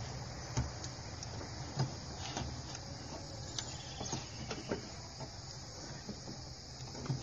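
Faint, scattered metal clicks and taps of a hand valve spring compressor being fitted and worked against an exhaust valve spring on a Nissan VG33E V6 cylinder head, over a steady background hiss.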